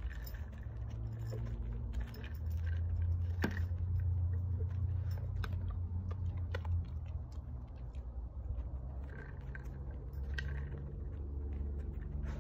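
A homemade treat toy, a pipe closed with two end caps and drilled with holes, rolling on the floor with a low rumble, the dry treats inside rattling and clicking against the walls, with a few sharper knocks.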